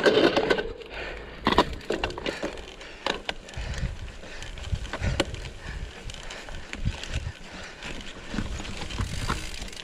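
Mountain bike rolling over a rough, dry trail: irregular cracks, clicks and rattles from twigs, stones and the bike, with a scrape at the start, a sharp crack about a second and a half in, and a low uneven rumble underneath.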